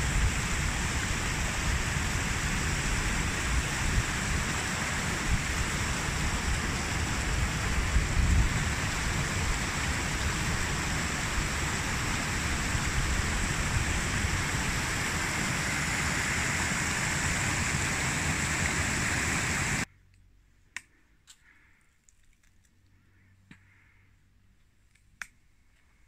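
Waterfall: a steady rush of falling water that cuts off abruptly about twenty seconds in. After that there is near quiet with a few faint clicks.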